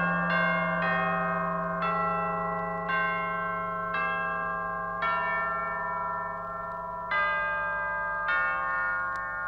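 Slow melody of struck, bell-like chimes, a new note about every second, each ringing on and fading, over a steady low held tone.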